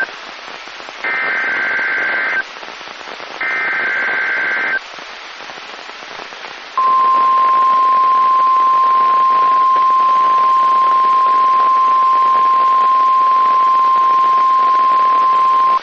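Emergency Alert System SAME header on NOAA Weather Radio: short warbling data bursts about a second apart, then the steady single-pitch warning alarm tone for about nine seconds, over radio static. The alarm tone announces a new warning, here a tornado warning.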